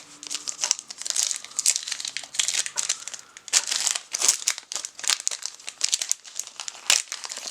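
Plastic trading-card pack wrapper being torn open and crinkled, a busy run of irregular crackles and rustles.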